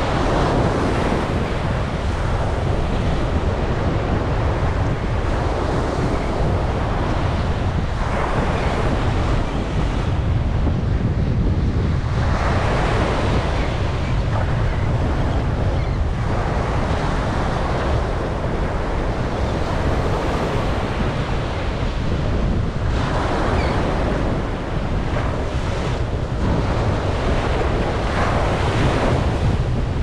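Ocean waves breaking and washing up a sandy beach, the surf swelling and fading every few seconds. Steady wind rumbles on the microphone underneath.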